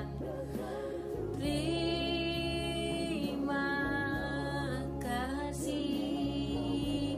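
A woman singing an Indonesian worship song, holding long drawn-out notes over low sustained accompaniment chords.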